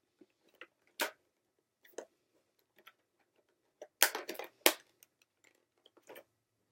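Scattered sharp clicks and taps of a packaged Rubik's Cube being handled, with a quick cluster of louder clacks about four seconds in.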